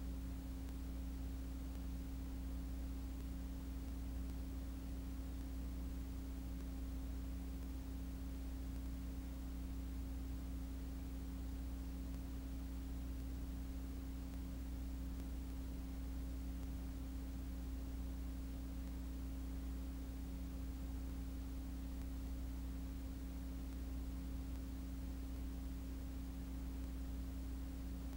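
Steady low hum made of a few fixed tones over faint hiss, with no change and no other sound.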